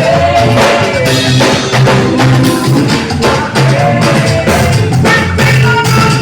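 A live band playing an up-tempo song: drum kit and hand percussion keeping a steady beat over a strong bass line, with a melodic line on top.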